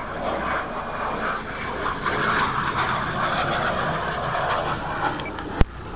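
A jet aircraft flying past at an air show, its engine noise a steady rushing that grows somewhat louder about two seconds in. A single sharp click near the end.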